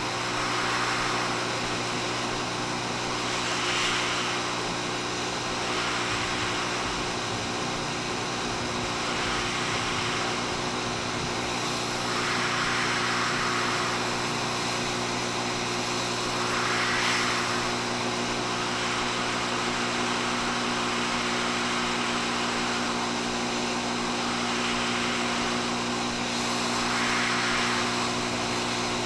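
Hot air rework station blowing hot air from its nozzle: a steady airflow hiss over a low hum, swelling and easing every few seconds. It is heating a surface-mount chip to melt its solder for removal.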